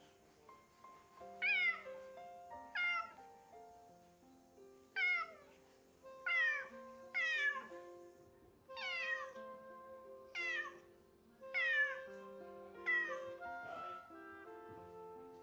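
Domestic cat meowing about nine times, each meow sliding down in pitch, one every second or so: calling for its owners, who have gone downstairs. Soft background music plays underneath.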